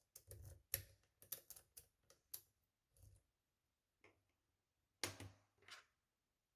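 Faint metal clicks and scrapes of a tension wrench and lock pick working in the keyway of an EVVA 3KS slider lock, in quick irregular runs through the first three seconds and again about five seconds in.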